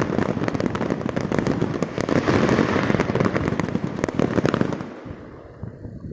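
Fireworks display: a dense, rapid barrage of bangs and crackles that dies away about five seconds in.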